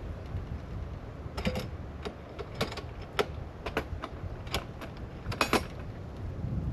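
A string of irregular sharp clicks and knocks as gear on a roof rack is handled from a ladder, the loudest near the end, over a steady low rumble.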